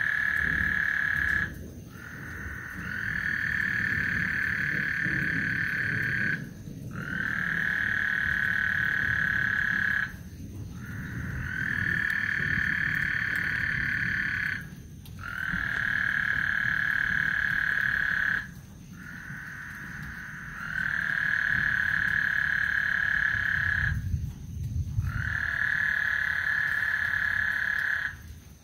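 Frogs calling, one long, steady, high-pitched call after another. Each lasts about three to four seconds, about seven in a row, with short breaks between them.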